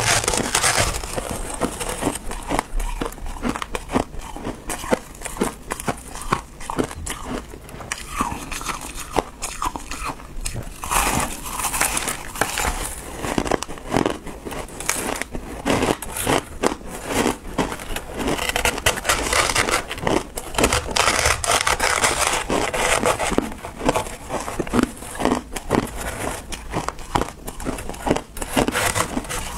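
Refrozen crushed ice being scooped and scraped with a metal spoon from a tray and crunched between the teeth: a dense, continuous run of crackling clicks.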